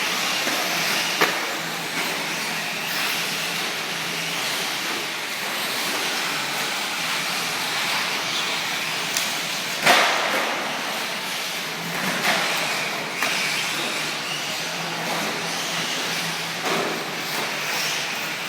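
Radio-controlled car running with a steady whirring hiss, broken by a few sharp knocks, the loudest about ten seconds in.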